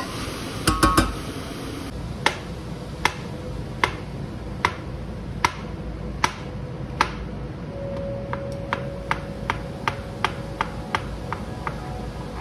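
Knife slicing button mushrooms on a plastic cutting board, each stroke ending in a sharp tap on the board: about one every 0.8 s at first, then quicker, nearly three a second, in the last few seconds. In the first second a spoon clinks a few times against a steel pot.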